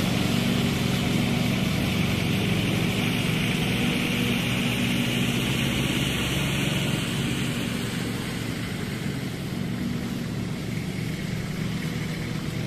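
Cub Cadet XT2 QR106 riding lawn mower's Kawasaki 726 cc V-twin petrol engine running steadily under way, slowly fading as the mower drives off across the lawn.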